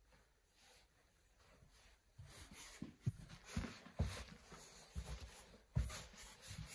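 About two seconds of near silence, then irregular dull low thumps with faint rustling, roughly one or two a second: footsteps on the floor and handling noise from a phone carried while walking.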